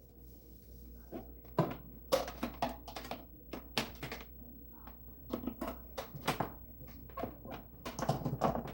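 Irregular clicks, knocks and clatters of household items and small appliances being handled and set down on a kitchen counter during tidying.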